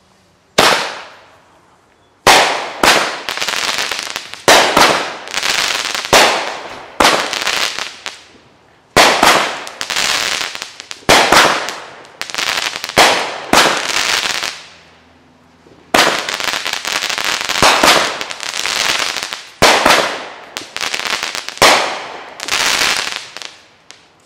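Fireworks going off in quick succession: one bang, then a long volley of loud bangs about one every half-second to second, each fading away over about a second, with a brief pause about halfway through before the volley resumes.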